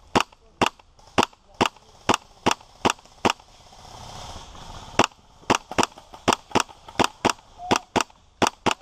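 HPA-powered WE P90 airsoft gun firing single shots, sharp cracks in a steady rhythm of about two to three a second, pausing for about a second and a half midway before firing on.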